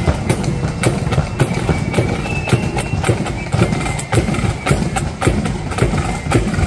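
A marching flute band's side drums and bass drum beating a steady marching rhythm of sharp, evenly spaced strokes.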